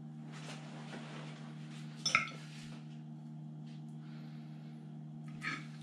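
Metal fork and spoon scraping and clinking against a ceramic plate while cutting a soft cassava cake, with a sharp clink about two seconds in and a smaller one near the end. A steady low hum runs underneath.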